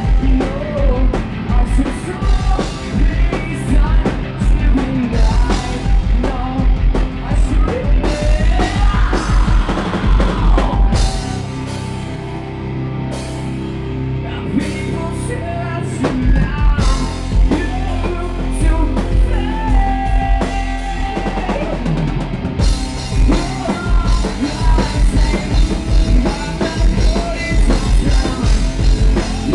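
Live rock band playing with a pounding drum kit and a singer. The drums drop out for a few seconds about eleven seconds in, leaving held notes, then the full beat comes back.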